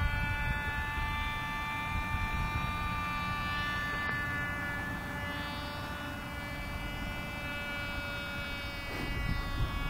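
Tiny Cox Tee Dee .020 two-stroke glow engine of a Robbe Tiger Moth model biplane in flight overhead, a steady high-pitched buzz with slight shifts in pitch. Wind rumble on the microphone underneath.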